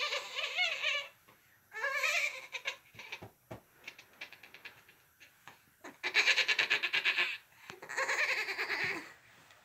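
A girl's voice doing animal impressions of a laughing hyena-monkey: short warbling, wavering calls, then soft scattered clicks and rustles of the bedspread as she crawls, then two long, rapid, stuttering laugh-like calls near the end.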